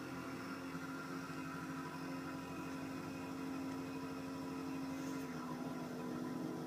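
Homemade oscillator noise-maker box putting out a steady, buzzy electronic drone with delay on it, its pitch stepping down slightly about five seconds in as a knob is turned.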